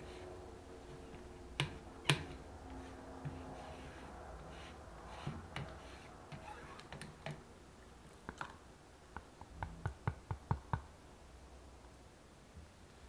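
Kitchen utensils and dishes clicking and tapping: scattered sharp taps, the loudest two about two seconds in, then a quick run of about eight taps late on.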